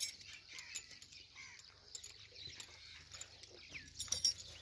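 Quiet outdoor background with faint scattered clicks and a few short chirp-like sounds, and a quick run of louder clicks about four seconds in.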